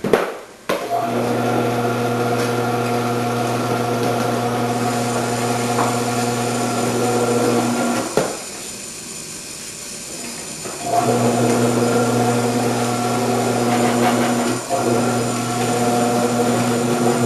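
Electric motor of an Omcan HLC 300 vegetable cutter running with a steady hum as cheddar is fed through its grating disc. It starts about a second in, stops for about three seconds midway, then runs again.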